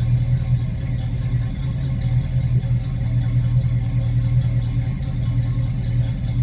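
1969 Ford Mustang Mach 1's V8 idling steadily in gear, with a deep, even exhaust note and no revving.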